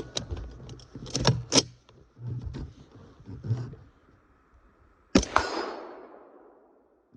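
One suppressed .308 rifle shot from an AR-10 fitted with a HUXWRX Flow 7.62 Ti suppressor, about five seconds in, followed a fraction of a second later by the ringing of a steel target being hit. Before the shot, a few sharp clicks and knocks.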